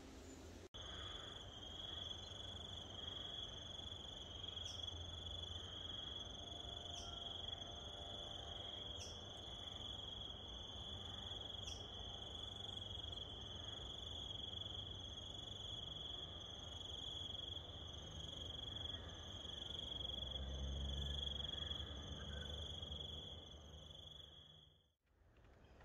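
Insect, cricket-like, trilling on one steady high-pitched note, starting abruptly about a second in and cutting off near the end.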